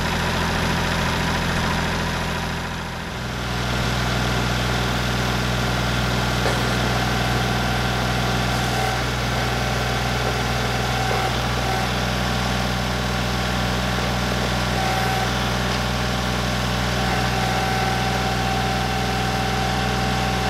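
Kubota tractor's diesel engine running steadily while working the backhoe. Its note shifts once about three seconds in.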